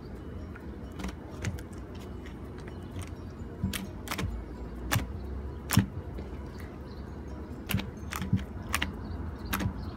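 Homemade white glue-and-borax slime being stretched, pressed and poked by hand on a plastic sheet for ASMR, giving irregular sticky clicks and small pops, the loudest about six seconds in.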